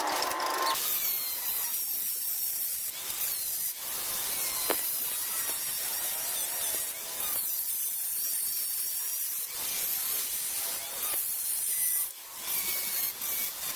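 Hissing, rubbing power-tool noise of metal being worked, in short segments that change abruptly every second or two.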